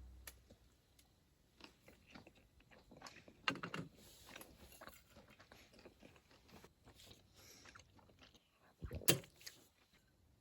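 Faint clicks, taps and crunches of small things being handled close by, with two louder knocks, one about three and a half seconds in and one near nine seconds.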